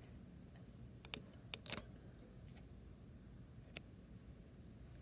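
Faint clicks and a short cluster of light taps from scissors and thread being handled, the loudest about a second and a half in, over a low steady room hum.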